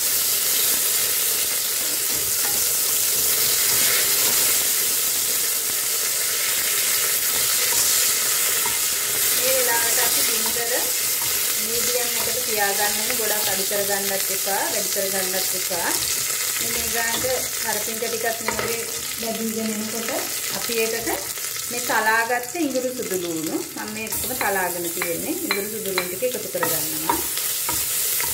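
Curry leaves and rampe sizzling in hot oil with mustard seeds, urad dal and fenugreek in an aluminium pressure-cooker pot, stirred with a spoon that scrapes the pot: the tempering stage of a curry. From about a third of the way in, wavering pitched sounds come and go in the background.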